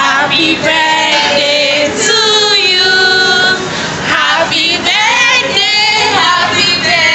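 Female voices singing a melody loudly, with notes held and sliding in pitch.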